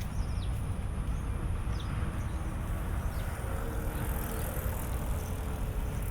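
Outdoor street ambience: a steady low rumble with short falling chirps high up every second or so, over a faint steady high whine.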